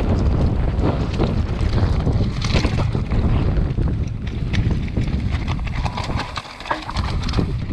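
Wind buffeting the microphone of a camera on a mountain bike rider at speed, with tyres crunching over wet loose shale and rock and a run of clicks and rattles from stones and the bike. The rumble drops briefly about six and a half seconds in.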